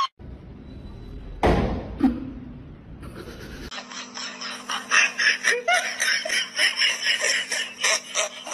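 Two short, sharp sounds about a second and a half and two seconds in, then from about four seconds a long run of rapid, rhythmic laughter.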